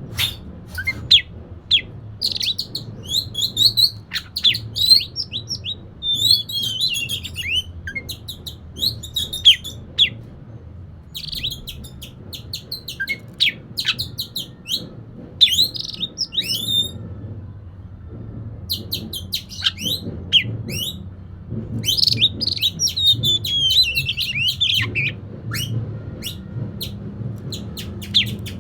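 Oriental magpie-robin singing a loud, varied song of quick chirps, whistles and falling trills, in bursts separated by short pauses. A steady low hum runs underneath.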